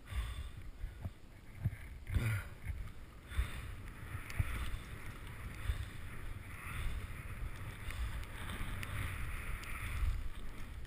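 Riding fast through deep powder snow: a rush of snow spray that swells and fades about every two seconds with each turn, over a low rumble of wind buffeting the helmet-mounted microphone, with a few knocks.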